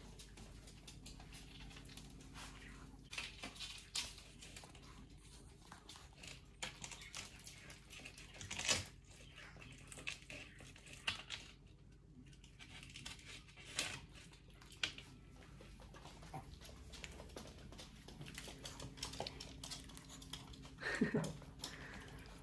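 Two small dogs, a Pomeranian and a Maltipoo, moving about and picking up scraps of egg on a hard wooden floor: quiet, scattered clicks of claws and mouths, with one brief whine about 21 seconds in.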